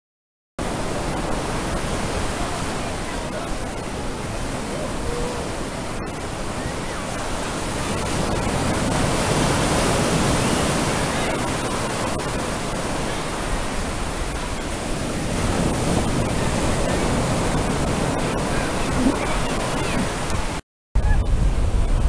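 Ocean surf breaking and washing in among the wooden pilings under a fishing pier: a steady rush of water that swells louder twice.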